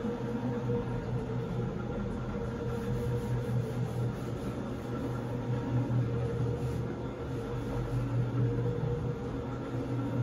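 Single-disc rotary floor machine running steadily, its motor humming as the brush scrubs a wet, foamy shag rug.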